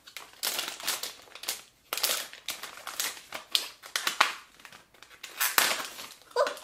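Plastic blind-bag packaging crinkling and rustling in irregular crackles as the printed outer wrapper and the small clear inner bag are handled and opened.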